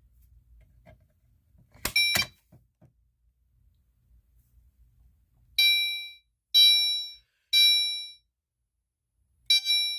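A pull station's handle clacks down twice in quick succession about two seconds in. From about halfway, a Gentex Commander 3 horn strobe set to chime sounds in the code 3 pattern: three decaying chime tones a second apart, a pause, then the next set of three beginning near the end.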